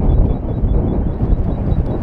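Fagradalsfjall lava fountain erupting from its cone vent: a loud, steady low rumble with no pauses, mixed with wind buffeting the microphone.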